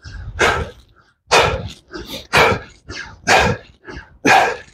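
A man breathing hard during push-ups, with a loud, breathy exhale about once a second, in time with the reps.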